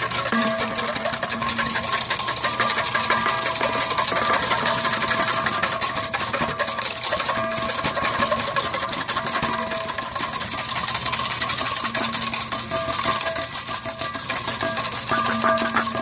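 Wire whisk beating fast against a stainless steel mixing bowl, a dense, steady rattle of rapid clicks, as oil is drizzled in to emulsify egg yolks into an aioli. A faint steady hum of tones sits underneath and drops out now and then.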